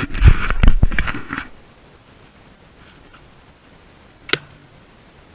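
Loud rustling and knocking of handling noise with a low rumble for about a second and a half, then quiet with a single sharp crack about four seconds in.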